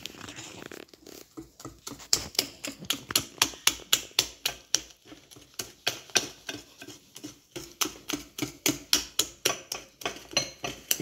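Wire whisk beating thick waffle batter in a glass baking dish, its wires clicking against the glass in a quick steady rhythm of about three strokes a second. The strokes are softer at first and turn into sharp clicks about two seconds in.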